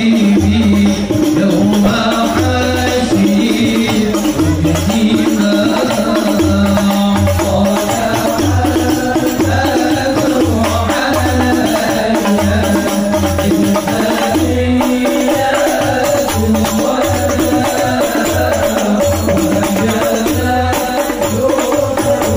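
Music with a steady low beat, about one pulse a second, under sustained melodic notes.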